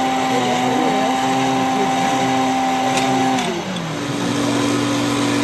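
Electric motor of a running O-gauge model train whining steadily. About three and a half seconds in the whine slides down in pitch, then settles into a new steady tone.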